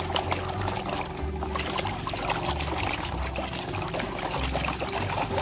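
Water pouring and trickling over a plastic toy vehicle as it is washed, with many small splashes and clicks.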